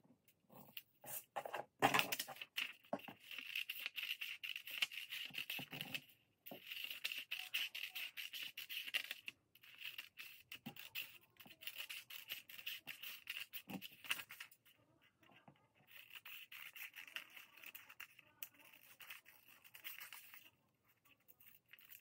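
Scissors cutting through pattern paper in several long spells of cutting separated by short pauses, with a steady high-pitched edge to the sound.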